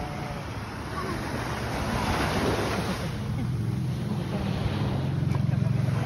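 Small waves washing onto the shore, a steady surf hiss that swells about two seconds in. Wind buffets the microphone with a low rumble, strongest near the end.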